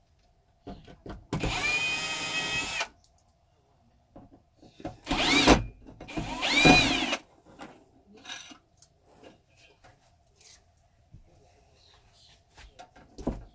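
Cordless drill/driver backing out the screws of a ceiling dome light fixture. It starts with a steady whine for about a second and a half, then gives two louder trigger squeezes that speed up and slow down. A few light clicks and knocks from handling the loosened fixture follow.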